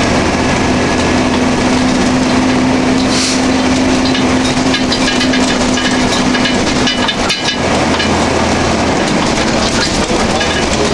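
Fire apparatus' heavy diesel engine running, with rattling and cracking and a steady tone for several seconds through the middle.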